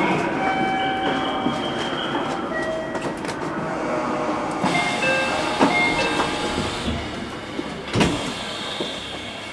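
Station rail noise heard from the cab of a train standing at a platform: a busy steady mix with short high squeals coming and going. A single sharp thump comes about eight seconds in.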